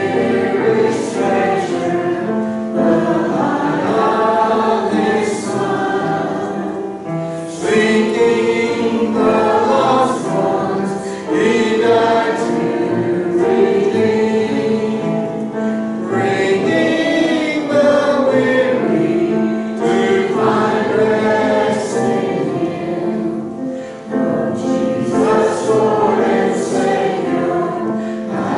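Church congregation singing a hymn together in a choir-like blend of voices, in phrases about four seconds long.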